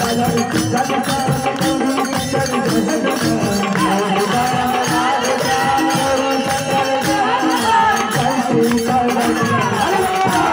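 Live devotional folk music: a harmonium holding steady notes over fast, continuous jingling and rattling hand percussion.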